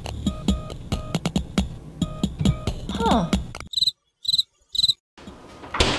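Background music with a steady beat ends in a falling slide and cuts off about three and a half seconds in. Three evenly spaced cricket chirps follow in the sudden quiet: the comic "crickets" sound effect.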